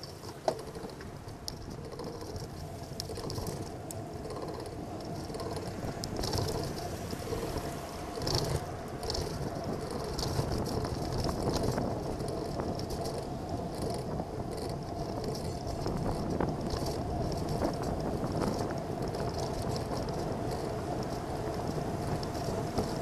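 Riding noise of a road bicycle picked up by a bike-mounted camera: steady tyre and wind noise that grows louder as the bike gathers speed, with small rattles and a sharp click about half a second in.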